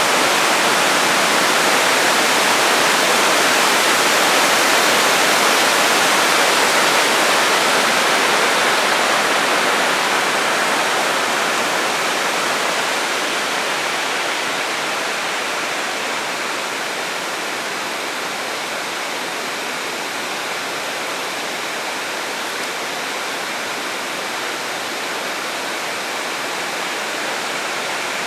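Waterfall: falling water rushing steadily, a dense unbroken hiss that grows a little quieter partway through.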